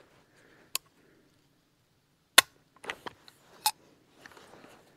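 Four sharp metallic clacks from a 9mm carbine's action, the loudest about two and a half seconds in: the bolt going forward and being worked as a CorBon 125-grain round fails to feed, hung up on the feed ramp.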